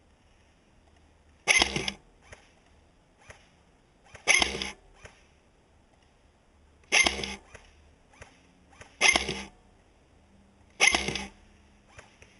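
Five single semi-automatic shots from a G&G GR25 electric airsoft DMR, a couple of seconds apart. Each is a sharp snap with a brief tail, and faint clicks fall between them.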